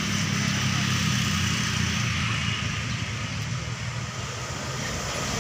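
Bus diesel engine running steadily at low revs, a low even hum with traffic noise around it.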